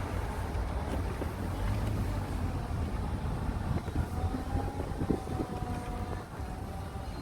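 Wind buffeting the microphone outdoors, a steady low rumble, with a faint thin tone drifting through the middle.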